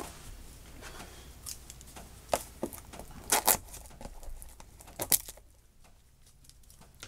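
Cellophane shrink wrap on a small cardboard blind box crinkling as the box is handled and set down on a wooden table: a handful of sharp, short crackles and light knocks spread across a few seconds.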